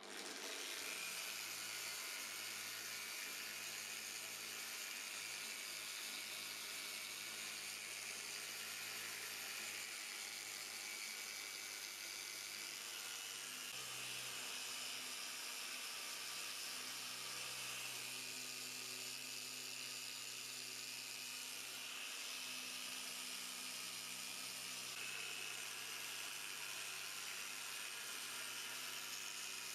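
Small handheld corded electric sander-polisher switching on and running steadily, its pad working over a frosted plastic headlight lens with an even high whir; the tone shifts slightly about halfway through.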